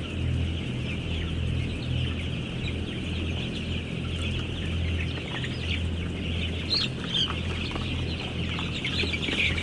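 A big flock of young broiler chickens, about ten days old, peeping and cheeping all together in a dense, continuous chatter, over a steady low hum.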